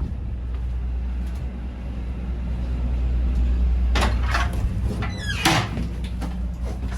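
A railroad passenger car's door clattering, knocking and squeaking from about four seconds in, over the steady low rumble of the standing train.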